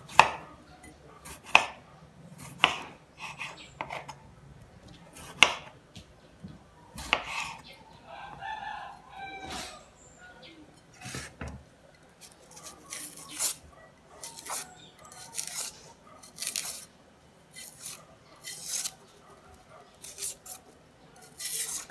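Kitchen knife slicing tomatoes and a carrot on a cutting board, a sharp tap each time the blade meets the board, the cuts coming faster in the second half. A rooster crows in the background about eight seconds in.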